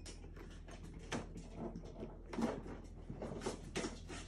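A child sipping a fizzy drink through a straw and swallowing, with scattered small clicks, knocks and rustles as she moves.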